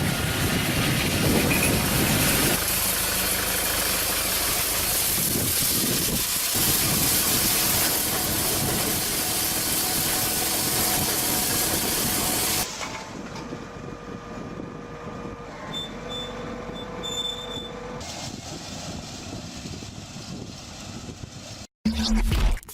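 Heavy farm machinery running: a loud, rough engine and mechanical noise, cutting suddenly about thirteen seconds in to a quieter machine hum with steady tones. A brief loud burst comes near the end.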